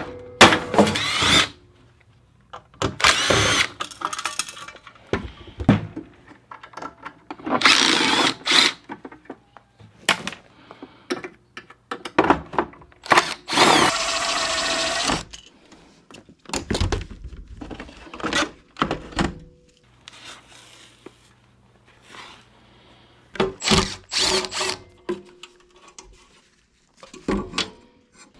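Cordless power driver run in short bursts, its motor whining up and down, as screws are backed out of a dehumidifier's casing, with knocks and clanks of loosened parts between bursts.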